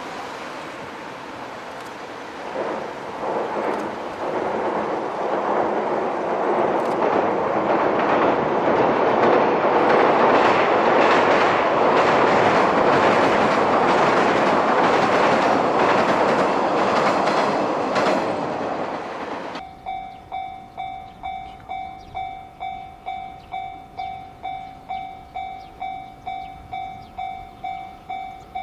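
A 485-series electric train passes at speed, its wheels clattering over rail joints, building over several seconds. The sound cuts off abruptly about two-thirds of the way through. After that, a level crossing's electronic warning bell rings in steady, even pulses a little more than once a second.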